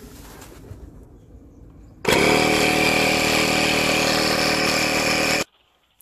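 Portable 12-volt tyre inflator's compressor switching on about two seconds in, running loud and steady for about three seconds, then stopping abruptly.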